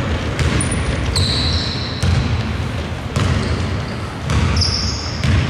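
A basketball bouncing on an indoor court floor with dull thuds about once a second, among several short, high-pitched squeaks of sneakers on the court.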